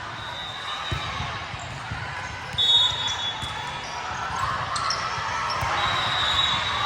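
Sports-hall noise during an indoor volleyball match: steady crowd chatter with dull thuds of the ball. A short, high-pitched steady tone about two and a half seconds in is the loudest moment, and a fainter one comes near the end.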